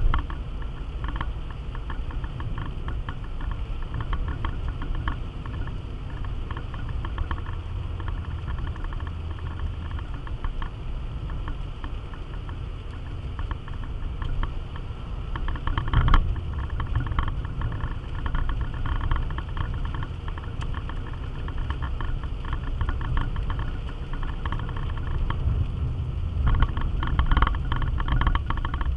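A car heard from inside its cabin while driving on a wet road: a steady low rumble of engine and tyres, with fine crackling and rattling on top. About halfway through there is a single sharp thump, like the car going over a bump.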